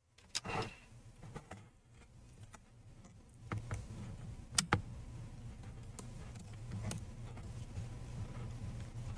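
Small sharp clicks and taps of a tool prying and wiggling a clipped-on Wi-Fi cable connector loose inside a MacBook Air, irregular, with the loudest click about four and a half seconds in. A low steady hum sits underneath from about halfway through.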